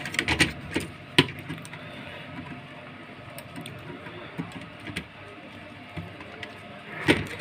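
Scattered light clicks and taps from a DTH set-top receiver's power supply board being handled and fitted into place, the sharpest click about a second in, over steady background noise.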